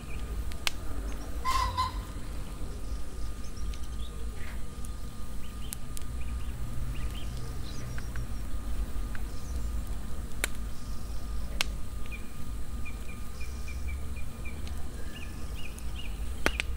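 Scattered light clicks and rustles of chopped fresh herbs being scooped by hand into a plastic bowl, over a steady low rumble. A quick run of short, high bird chirps comes near the end.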